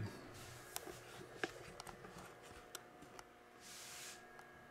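Quiet room tone with a faint steady hum, broken by a few soft clicks and taps, and a brief soft hiss near the end.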